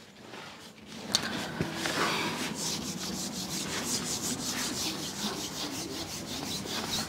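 Handheld whiteboard eraser rubbing across a whiteboard in quick back-and-forth strokes, wiping off marker writing; it starts about a second in.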